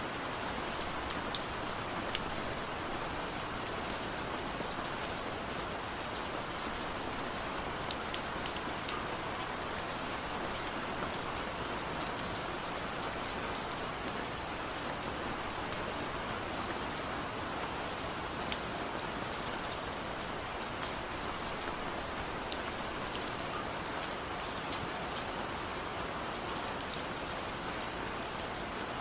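Steady rain falling, with scattered close drops ticking sharply over the even hiss.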